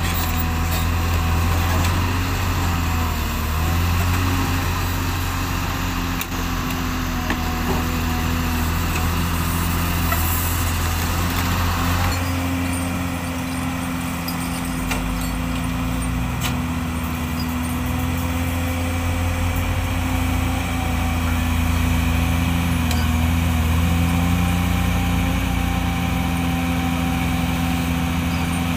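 Heavy diesel engines of a Hyundai excavator and wheel loader running steadily, a low drone with a few faint knocks.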